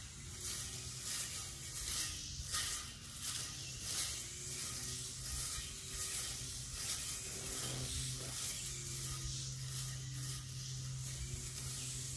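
Battery-powered weed eater fitted with a cutting blade running, its electric motor humming steadily with a wavering pitch, and repeated short swishes as it cuts through grass.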